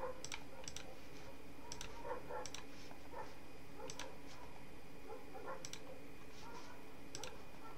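Computer mouse clicking at an irregular pace, each click a quick double tick of press and release, over a faint steady background hum.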